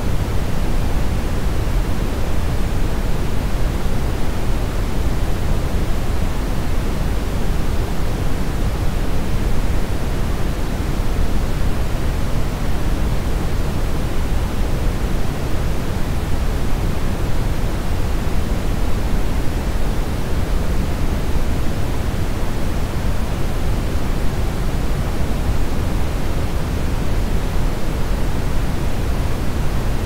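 Steady brown noise: a deep, even hiss with most of its weight in the low end.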